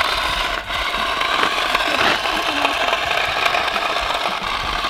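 Yigong 258-21 1/20-scale RC dump truck running, its small electric drive motors and gearboxes giving a steady whir.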